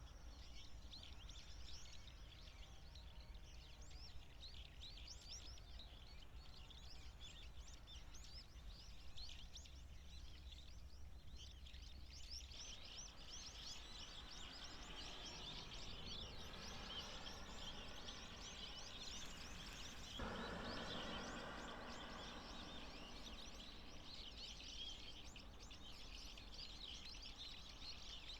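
A flock of waxwings, Bohemian and Japanese, giving many high, thin trilling calls that overlap continuously. The faint background changes abruptly about 12 and 20 seconds in.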